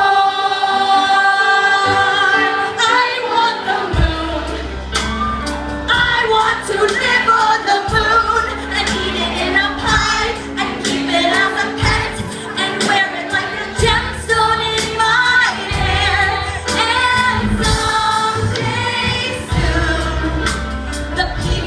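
A woman sings live with a rock band: drums, acoustic and electric guitars, and keyboard. She holds a long note at the start. The low end and the drums come in strongly about four seconds in.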